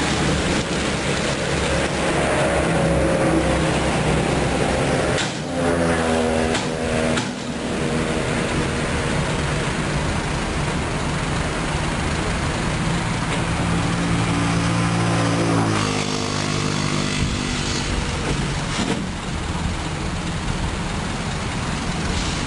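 Diesel engine of a Mitsubishi Fuso Canter light dump truck running, its revs rising and falling a few times while the tipper body comes down after dumping stone and the truck creeps forward.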